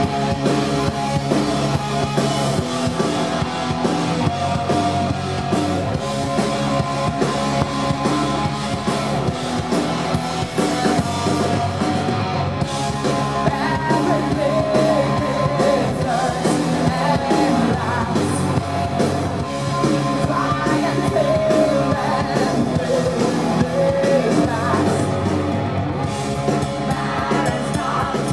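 Live rock band playing: distorted electric guitar, bass guitar and drum kit, with a woman singing over them.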